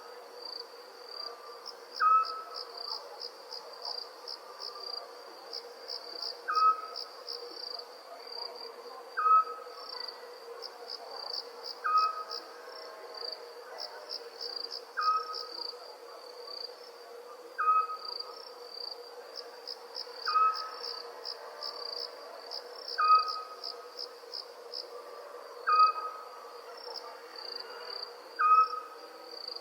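Night-time crickets chirping in a continuous high, pulsing trill, with a short owl call repeating about every two and a half seconds as the loudest sound.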